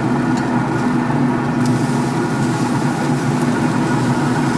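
A steady, constant-pitch mechanical hum like an idling engine or running motor, with a few faint clicks.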